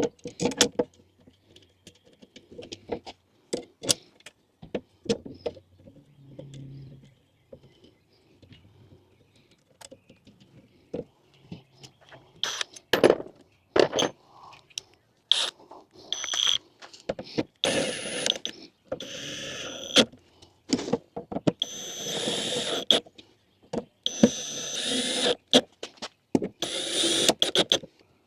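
Wooden drawer parts being fitted and knocked together: scattered clicks and knocks. From about halfway on come several one-to-two-second stretches of a harsh whirring noise with a steady high whine in it.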